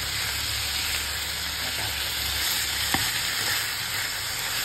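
Strips of meat and sliced onion sizzling steadily in an oiled frying pan while being stirred with a wooden spatula, with a single tap about three seconds in.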